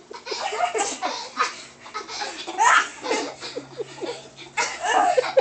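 Young girls laughing hard in repeated bursts while one girl is swung by her arms and legs.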